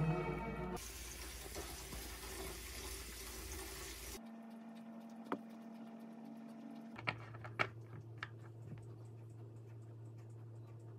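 The tail of background music, then about three seconds of steady hissing and bubbling from stew boiling in an earthenware pot. After an abrupt cut, a quiet room with a low hum and a few small, sharp clicks.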